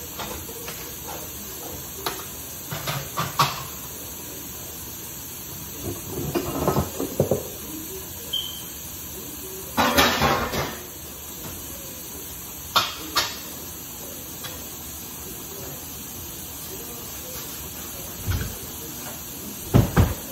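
Dishes and utensils clattering and knocking now and then at a kitchen sink, in short clusters over a steady hiss.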